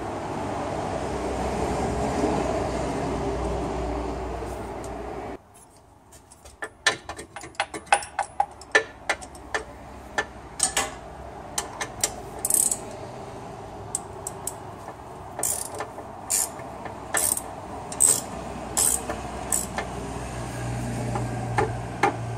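A steady rushing noise cuts off suddenly about five seconds in. Then a ratchet wrench on a long extension clicks, first in a quick run and then in spaced single clicks, as it tightens the plastic external filter housing on a dual-clutch transmission.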